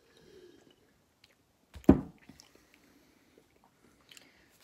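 A person chewing a soft jelly bean, with small, faint mouth sounds. There is one short, louder sound about two seconds in.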